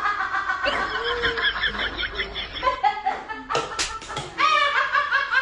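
Several people laughing hard in rapid repeated bursts, with two sharp slaps about two-thirds of the way in, followed by more laughter.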